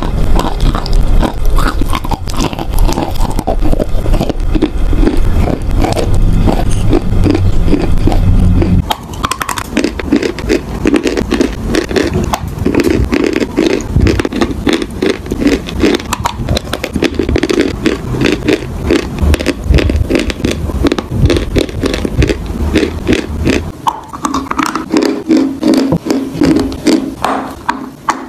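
A person biting and chewing chalk close to the microphone: rapid crunching and gritty grinding, many small crunches a second. The sound changes twice, about 9 s and 24 s in, as one chewing clip gives way to another.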